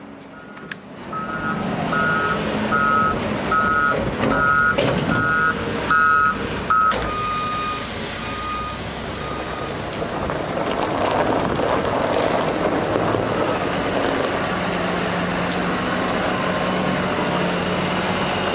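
A vehicle's reversing alarm beeping about three times every two seconds over a running diesel engine; the beeps turn fainter after about seven seconds and stop soon after. The farm machinery engine runs on steadily, with a low steady hum joining near the end.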